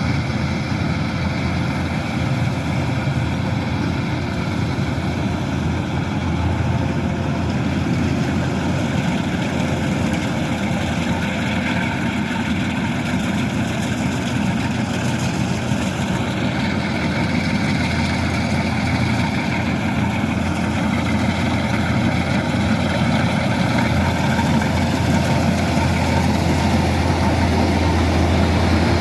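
Kubota rice combine harvester running steadily, engine and machinery making a continuous low drone that grows slightly louder near the end.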